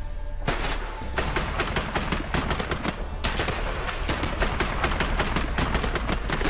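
Rapid, dense gunfire from a hand-cranked Gatling gun and a line of black-powder rifles firing together. It breaks out about half a second in and goes on without letup.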